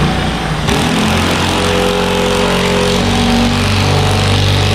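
Cordless drill running under load, driving a lag bolt into a wooden ceiling joist in one continuous run; the motor note drops lower after about three seconds as the bolt bites deeper.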